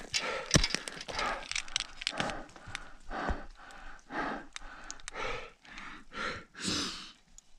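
A mountaineer's heavy, rapid breathing from hard exertion at high altitude, about one loud breath a second. A few sharp clicks and knocks from climbing gear come near the start.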